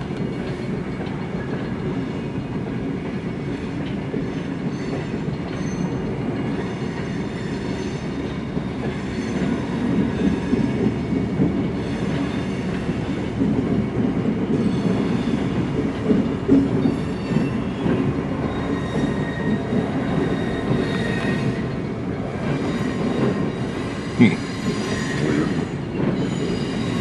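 Lake State Railway freight cars rolling past, a steady rumble of steel wheels on rail with faint high wheel squeal. A single sharp clank stands out near the end.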